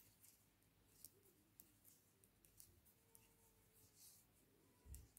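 Near silence, with faint light clicks of metal knitting needles being worked through yarn.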